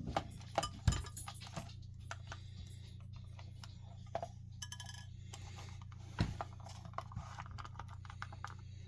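Scattered light clicks and taps of plastic parts and small tools being handled while a carbon monoxide alarm is taken apart, with a sharper knock about a second in and another around six seconds in, over a low steady hum.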